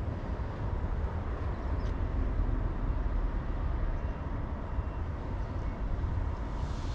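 Steady low rumble of outdoor background noise, with a soft hiss swelling up near the end.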